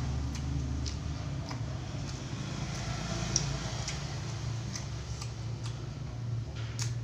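Eating sounds close to the microphone: chewing with scattered sharp mouth clicks and smacks, over a steady low hum.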